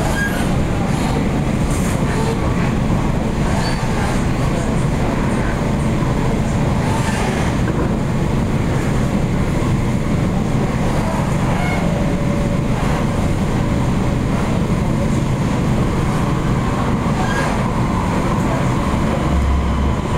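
Interior running noise of an MTR Tung Chung Line K-Train car under way: a steady rumble of wheels rolling on the track, with a few faint clicks.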